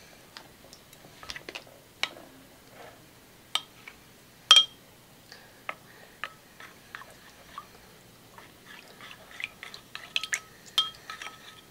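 Metal spoon clinking against a ceramic bowl while stirring cornstarch into water to dissolve it: scattered light clinks with a short ring, the loudest about four and a half seconds in, coming quicker near the end.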